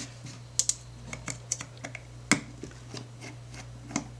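Light, irregular metal clicks and taps of a precision screwdriver working the screws that hold the aperture assembly inside a Nikon 50mm f/1.4 AI-S lens. The sharpest click comes a little over two seconds in.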